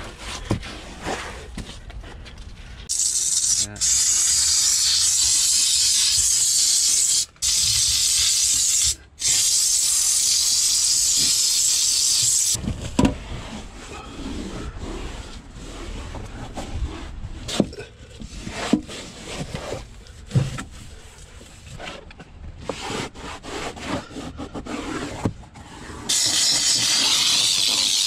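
Steam cleaner jetting steam in long, loud hisses, cut off briefly three times, then a stretch of towel rubbing with small knocks on plastic trim, and the steam hiss starting again near the end.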